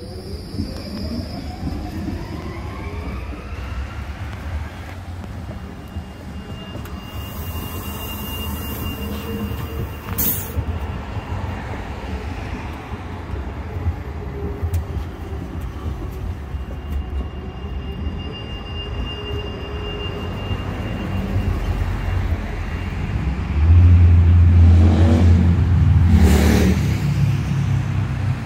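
Electric low-floor trams running slowly on the rails. A motor whine glides down in pitch at the start, with a faint steady high squeal through the middle and a sharp click about ten seconds in. A heavy close rumble is loudest near the end.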